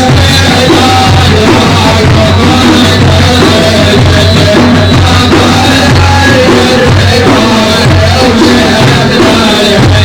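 Loud, steady instrumental music from an Arabic madih song, with a strong low beat and a held melody line.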